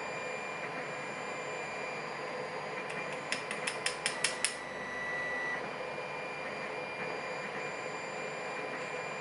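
A quick run of about eight small, sharp metal clicks, from the pins and springs of a gutted pin-tumbler lock being handled with tweezers, over a steady background hiss.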